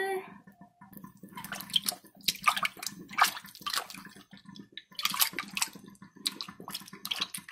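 Hands rubbing and swishing raw beef steak slices in a bowl of vinegar water, making irregular splashing and sloshing that starts about a second in, with short pauses. This is the meat being washed before it is cut up for soup.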